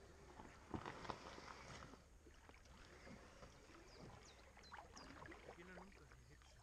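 Faint knocks, bumps and rustling of a loaded inflatable kayak being hauled in against a reed bank, with a couple of sharper knocks about a second in. A few short, high chirps of a small bird come through.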